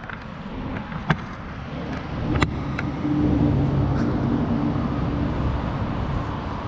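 A motor vehicle's engine rumble that builds over the first three seconds and then holds steady, with a few sharp clicks on top.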